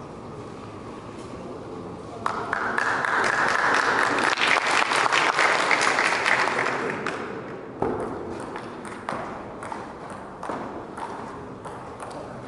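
Spectators applauding for about five seconds. Then, from about eight seconds in, the sharp clicks of a table tennis ball being struck by the bats and bouncing on the table in a rally.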